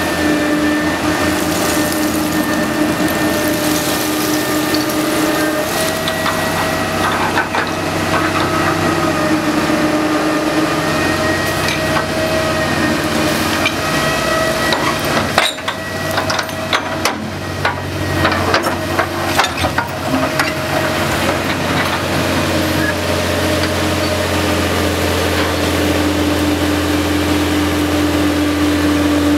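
Menck M260 cable dragline at work: its engine and winch gear run with a steady pitched hum. About halfway through comes a stretch of knocks and chain rattles from the drag bucket.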